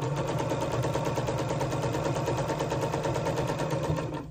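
Electric home sewing machine stitching steadily at speed, the needle running in rapid, even strokes as fabric is fed along the seam.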